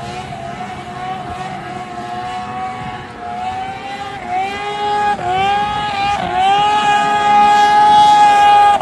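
Two-stroke snowmobile engine held at high revs to keep the sled planing across open water: a steady high-pitched wail. In the second half its pitch dips and climbs back three times, about a second apart, and it grows louder toward the end.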